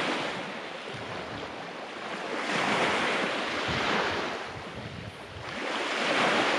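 Sea surf washing on the shore, swelling louder and fading about every three seconds, with wind rumbling on the microphone.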